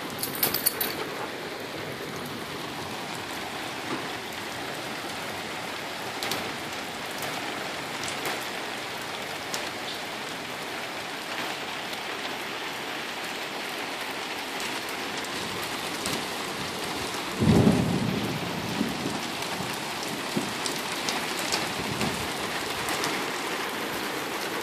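Steady heavy rain falling on a concrete driveway and lawn, with a short low rumble about two-thirds of the way through.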